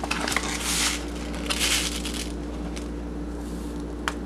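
Chia seeds poured from a pouch into a mixing bowl, in two short bursts of rustling and pattering in the first half, with a few light clicks and a faint steady hum.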